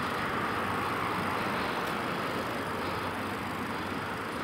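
Steady street noise: an even hiss with no distinct events.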